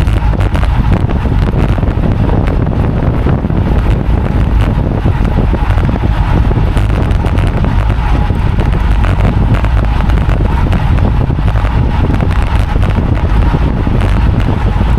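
Wind buffeting the microphone of a cyclist's camera during a road ride: a loud, steady low rumble that does not let up.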